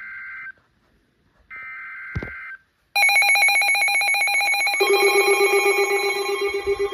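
Electronic emergency alert tones from several devices going off at once: two short ringing bursts with a click in the second, then from about three seconds a loud, rapidly pulsing alarm, joined by a second, lower alert tone near five seconds.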